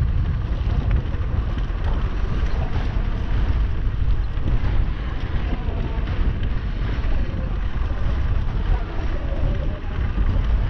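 Wind buffeting the microphone while riding a bicycle, a loud steady low rumble with a lighter hiss above it.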